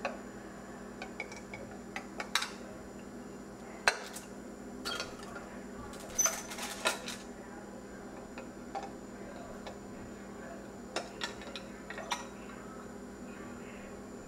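Glass petri dishes clinking and knocking as they are picked up, moved and set down. Scattered sharp taps, with a few louder knocks around four seconds in and again a little after six seconds.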